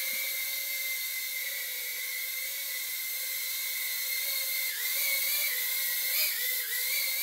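A Makerfire Armor Blue Bee 65 mm micro quadcopter hovering and flying, its four tiny motors and propellers giving a steady high whine. The pitch wavers briefly a few times in the second half as the throttle is adjusted.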